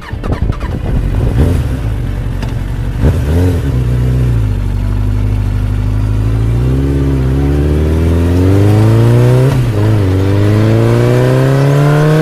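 Motor vehicle engine accelerating through the gears: its pitch climbs, drops back at each shift about three times, and climbs again. A sharp knock comes shortly before the acceleration starts.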